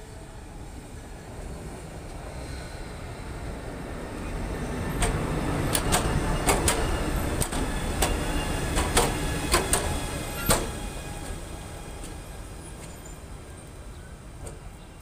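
SBB Ae 6/6 electric locomotive passing close by. A rumble builds up, then comes a run of sharp clicks from the wheels on the rails as it goes past, and the sound fades as it moves away.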